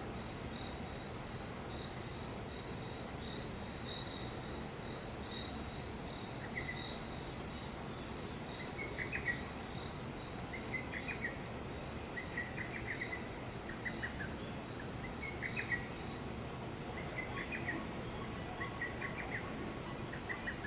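Insects trilling steadily at a high pitch. About six seconds in they are joined by a second, lower chirping call that repeats roughly once a second, over a steady low background rumble.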